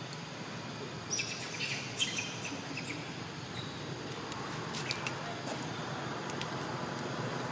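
A few short high-pitched animal chirps come in quick succession from about a second to two and a half seconds in, with a couple of sharp clicks near the five-second mark, over a steady background hiss.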